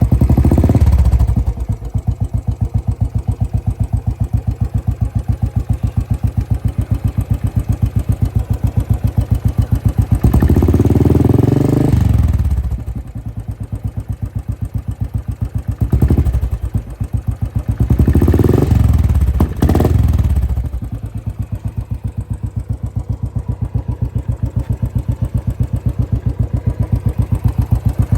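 Royal Enfield Classic 500 single-cylinder engine idling through a short-bottle silencer fitted with a sound filter, a steady beat of exhaust thumps. The throttle is blipped four times, with one longer rev in the middle.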